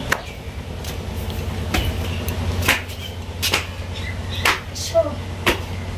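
Footsteps, about one a second, each a sharp tap, over a steady low hum.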